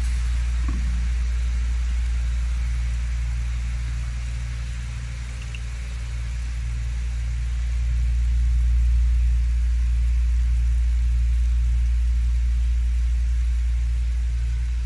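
A steady low mechanical hum, dipping a little in loudness about five seconds in and swelling slightly around eight seconds.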